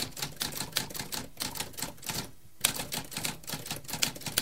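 Typewriter keys typing in rapid sharp clacks, about five a second. The clacking breaks off briefly about halfway through and starts again with a louder strike.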